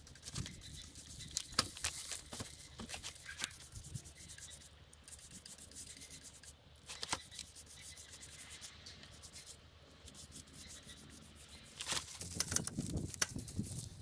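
Rubbing and scraping on wood with scattered light knocks and clicks. It goes quieter through the middle and is busiest and loudest about twelve seconds in.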